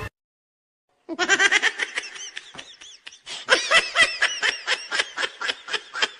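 Laughter sound effect: high-pitched giggling in quick, short bursts that starts suddenly after about a second of silence and picks up again, stronger, about halfway through.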